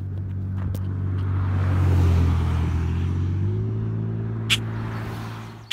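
A motor vehicle going by on a highway: engine hum and tyre noise swell to a peak about two seconds in, then ease into a steadier engine drone. Two sharp clicks sound near the end, and the sound cuts off abruptly.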